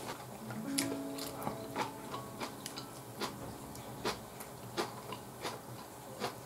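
Close-up chewing: a string of sharp, wet mouth clicks and smacks, a few each second at an uneven pace, over faint background music with held notes.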